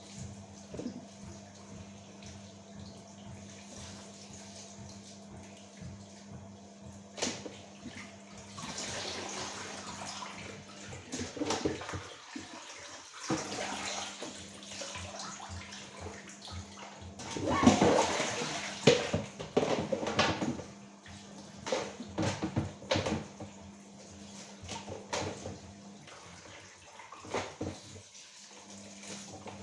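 Water running from a tap in two stretches, loudest about two-thirds of the way through, with clinks and knocks of kitchen work and a steady low hum underneath.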